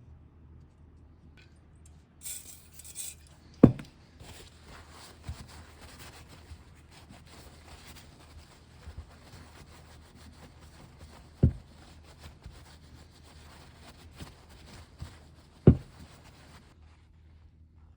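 A small sharpening stone rubbing over the edges of a freshly milled key slot in a metal ball-valve ball, stoning off the last burrs, a soft scraping that stops near the end. Three sharp knocks break it, about four seconds in, past the middle and near the end.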